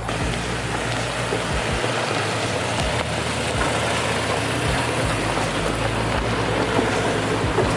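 Pickup truck engine running low and steady as the truck crawls over a rocky off-road trail, under a steady hiss, with a few dull low knocks.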